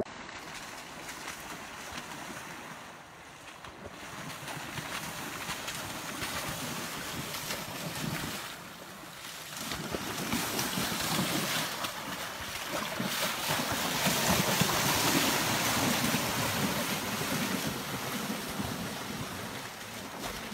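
Shallow river rushing, with wind on the microphone. In the second half a bear runs through the shallows, and its splashing is the loudest part.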